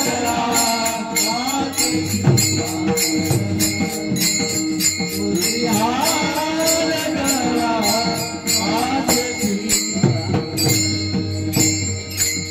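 Varkari devotional bhajan music: a sung melody over steady held accompaniment notes, with small hand cymbals (taal) clashing in a steady, even beat.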